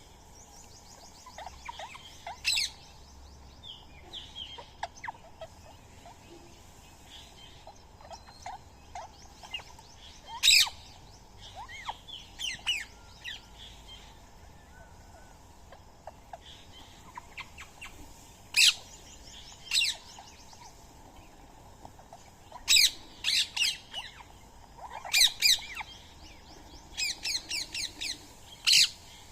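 Indian ringneck parakeets squawking: loud, harsh calls in short bouts every few seconds, coming more often near the end, with softer chirps between them.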